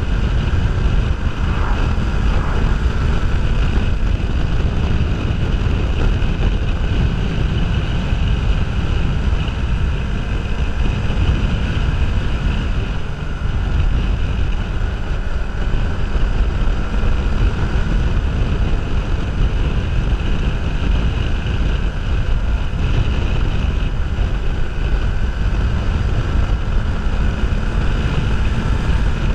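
Wind buffeting a helmet-mounted GoPro's microphone on a moving motorcycle, a steady rumble with the Kawasaki Ninja 500R's parallel-twin engine running underneath.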